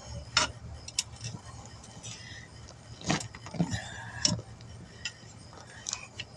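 Irregular metallic clinks and knocks of tire tools against a steel wheel rim as a large tire is pried off the rim by hand, over a low steady hum.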